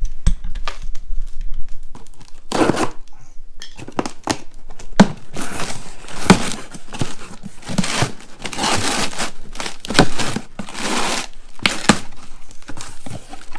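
Cardboard parts boxes being handled and torn open, starting a couple of seconds in: flaps ripping and packaging crinkling, with scattered sharp knocks and scrapes.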